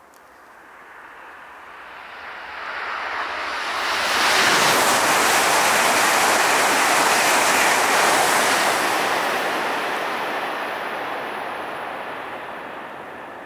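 Tohoku Shinkansen E5 series bullet train passing through the station at about 300 km/h. A rushing of air and wheels builds over about four seconds, stays at its loudest for about four seconds as the train goes by, then slowly fades.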